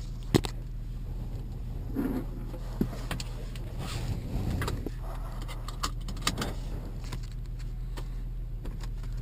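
Audi S4 engine idling with a steady low hum, with a few sharp clicks and light rattles of handling over it.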